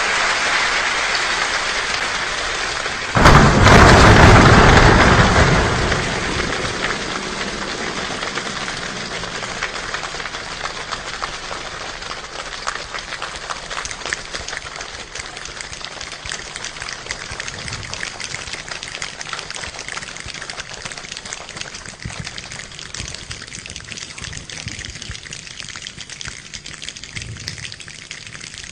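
A large group of people imitating a rainstorm with their hands and bodies. The rain-like patter surges to a loud downpour about three seconds in, then thins out gradually into scattered clicks, like a storm dying away.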